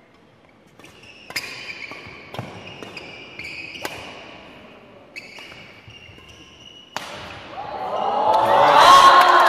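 Badminton doubles rally: about five sharp racket strikes on the shuttlecock, one to two seconds apart, with court shoes squeaking on the hall floor between them. After the last strike, about seven seconds in, watching players break into cheering and shouting that swells loudly.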